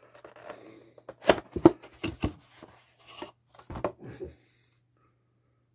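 Hands opening a cardboard Topps Clearly Authentic baseball card box and drawing out the card in its clear plastic holder: a string of sharp clicks and taps with rustling cardboard and plastic, stopping a little over four seconds in.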